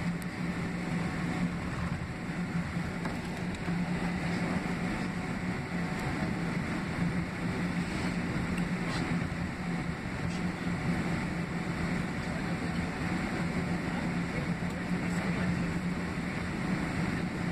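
Cabin noise of a Boeing 767-300ER taxiing, its two General Electric CF6-80C2B6 turbofans running at low taxi thrust. It is heard inside the cabin as a steady rumble and hiss with a constant low hum.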